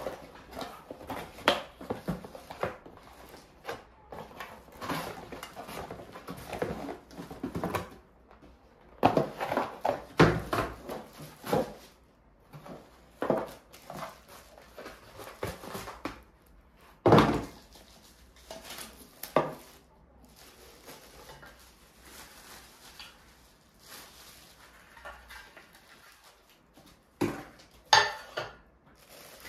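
Tableware clinking: utensils knocking against bowls and the pot in irregular clinks and taps during a meal, thinning out for a while before a few sharper clinks near the end.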